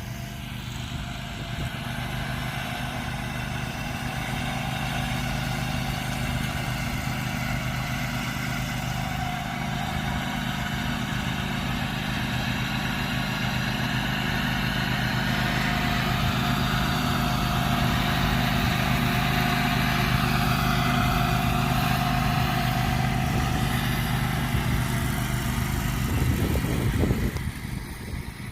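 Zero-turn riding lawnmower engine running steadily, with a broad hiss above the engine note. Near the end the sound swells briefly, then drops off.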